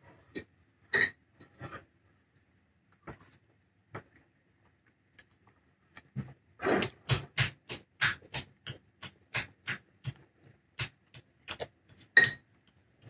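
Close-up eating sounds: a fork clinking against a ceramic bowl a few times, then noodles being slurped and chewed, about three short mouth sounds a second, with a sharp fork clink near the end.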